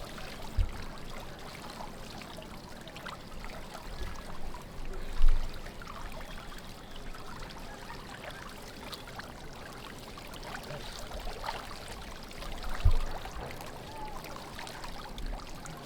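Water trickling and splashing as a large fishing net is hauled up out of a river, with three dull low thumps, the loudest about five seconds in.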